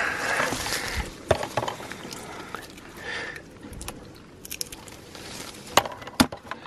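Scattered crunches and sharp clicks of oyster shell being handled and pulled from mud by hand, with two louder clicks near the end.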